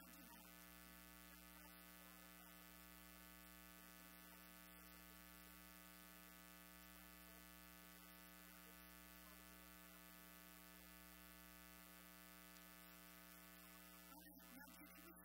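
Near silence with a steady electrical mains hum and its overtones.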